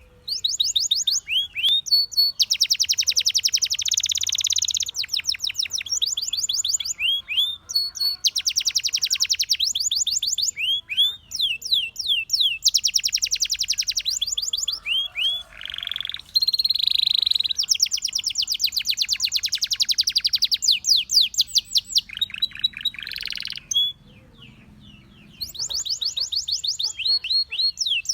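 Canary singing in fast, high trills of rapidly repeated notes, phrase after phrase with short breaks, and a brief pause near the end.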